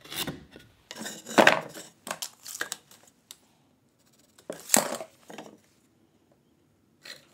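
Hand-tool handling noises: a pencil scratching lines onto a pine 2x4 along a steel combination square, with metal clinks and clatters as the square and a tape measure are picked up and set down on the bench. The loudest two come about a second and a half and about five seconds in.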